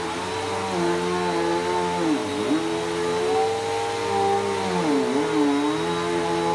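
Bissell PowerForce Helix Turbo upright vacuum running with a steady motor whine. Its pitch briefly dips and recovers twice, about two and five seconds in, as the motor comes under load.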